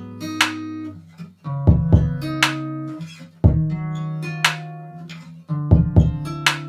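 Background music: plucked guitar and bass over a beat, with a sharp hit about every two seconds.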